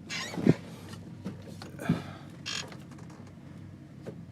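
ATV engine idling steadily, with a couple of sharp knocks and short rattling clicks from the controls while the four-wheel drive is being engaged.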